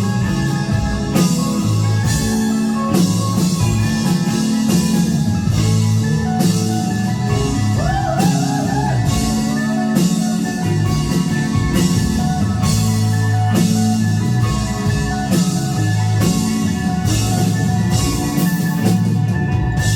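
Live rock band playing an instrumental passage near the end of a song: drum kit keeping a steady beat under electric guitars and bass guitar.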